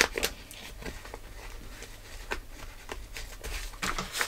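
Hands handling small objects on a workbench: a sharp knock right at the start, then light scattered clicks and rustles.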